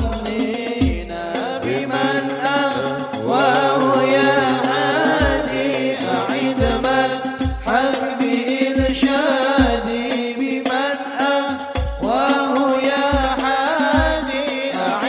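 Men singing an Arabic qasida in a long, ornamented melody into microphones. Deep hadroh bass drum strokes fall about once a second underneath.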